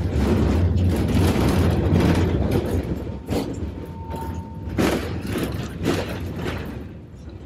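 Vintage tram running on its rails, heard from inside the car: a loud low rumble for the first three seconds, then a few sharp clunks and a brief thin whine about four seconds in.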